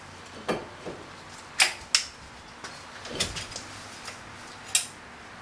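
Front brake pads of a Mazda Protege being worked out of the caliper bracket: a handful of short, sharp metallic clicks and clacks, the loudest two close together just under two seconds in.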